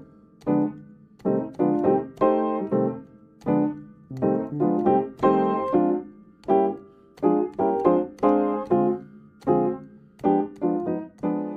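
Outro music: a piano-like keyboard playing a short melody of struck notes and chords, each dying away before the next.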